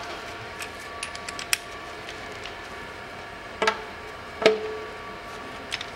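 Ratchet wrench working the drain plug of an Aisin 09D automatic transmission pan, as the plug is screwed back in: a quick run of small clicks about a second in, then two louder metallic knocks in the middle, the second with a short ring, over a steady background hum.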